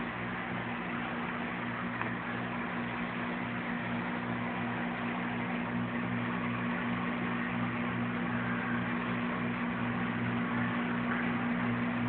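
Steady low mechanical hum with a hiss, unchanging throughout.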